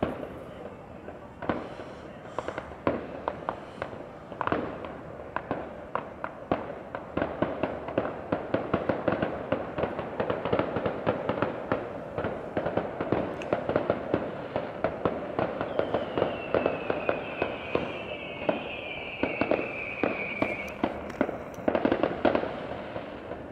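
Aerial fireworks display: a dense run of crackling and popping bursts with sharp bangs scattered through it and a cluster of louder bangs near the end. In the latter half a high whistle slides slowly down in pitch for about five seconds.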